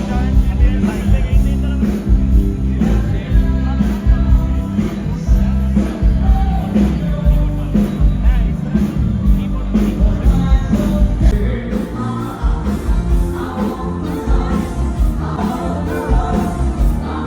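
Band music with a steady beat, heavy bass and drums, with a voice singing in places.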